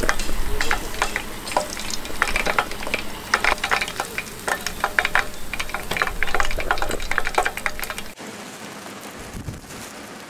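Chicken wings deep-frying in a pot of hot oil during the high-temperature second fry that crisps them: a steady sizzle with many quick crackles and pops. About eight seconds in it cuts off abruptly, and only a much quieter background is left.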